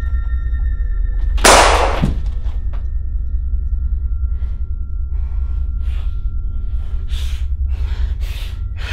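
Horror-film score: a low drone with steady held high tones. About a second and a half in comes a sudden loud rushing hit. From about four seconds on there is a run of short rushing strokes, roughly two a second, that grow louder.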